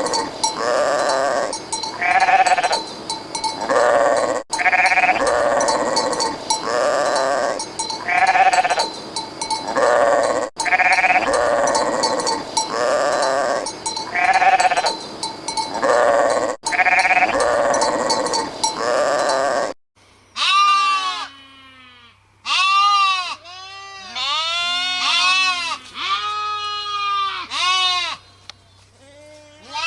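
Sheep bleating again and again. For the first two-thirds the same run of several bleats repeats about every six seconds over a hiss. About two-thirds in it switches to a cleaner run of short, quick bleats that rise and fall in pitch, over a low hum.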